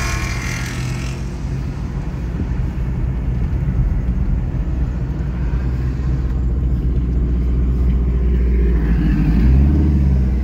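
Car engine and road noise heard from inside the cabin of a moving car: a steady low drone that rises in pitch and grows louder near the end as the car speeds up.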